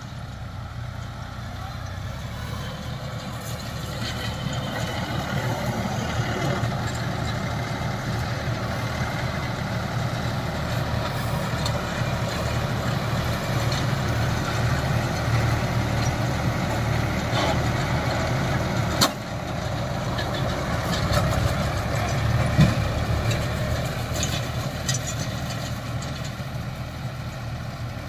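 Sanman 6000 tractor's diesel engine running steadily. A sharp knock sounds about three-quarters of the way through.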